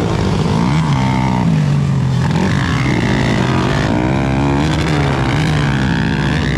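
Several motocross dirt bikes racing at once, their engines revving up and down in pitch as they ride the track.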